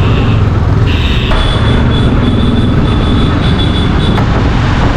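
Motorcycle riding slowly through street traffic: steady engine and road rumble with heavy wind buffeting on the microphone, and a thin high-pitched squeal from about a second in until near the end.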